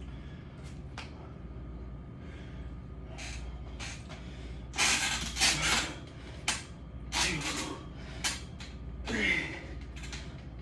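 A man breathing hard while doing pull-ups: from about halfway through, a run of forceful exhales with short grunts, roughly one a second, the first the loudest.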